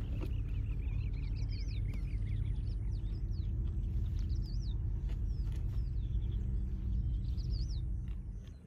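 Birds chirping in repeated quick, sweeping notes over a low steady rumble. The rumble drops away near the end.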